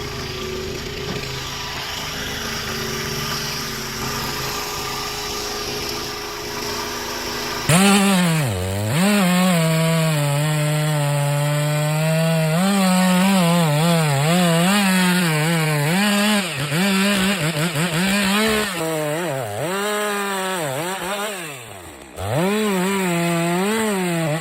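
A steady engine hum, then about eight seconds in a two-stroke chainsaw comes in at high revs. Its pitch dips and recovers over and over as the chain bites into the wood, and it twice drops briefly towards idle near the end.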